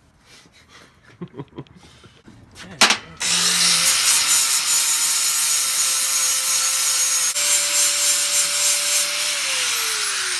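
A handheld electric power tool cutting a piece of half-inch square steel bar stock. It starts about three seconds in, after a few light knocks, spins up and runs loud, with a steady whine over harsh grinding noise. The whine falls in pitch near the end as the tool winds down.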